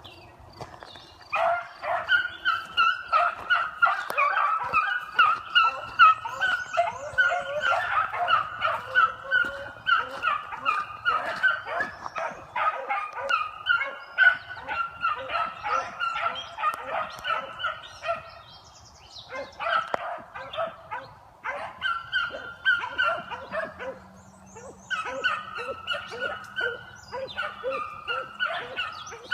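Beagles baying on a running trail: rapid short cries from several hounds overlap. They start about a second in and drop out briefly twice in the second half.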